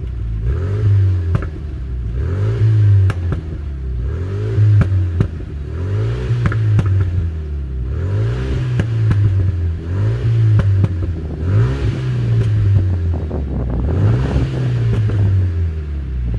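Renault Megane RS 250's turbocharged four-cylinder engine, on a stage one remap with a sports exhaust, being revved about eight times, roughly every two seconds, each rev rising and falling back. Short sharp cracks are heard between the revs.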